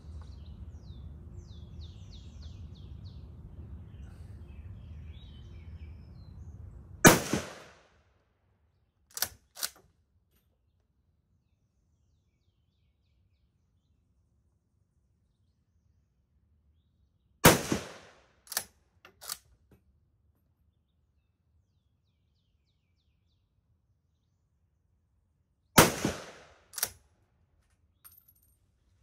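Three single rifle shots from a Swiss K11 straight-pull carbine, spaced about ten seconds apart, each followed about a second later by a few quick metallic clicks of the bolt being cycled.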